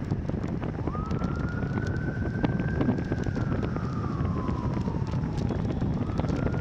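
A siren wailing: it rises about a second in, holds, slowly falls, and rises again near the end. Steady wind noise on the microphone runs underneath.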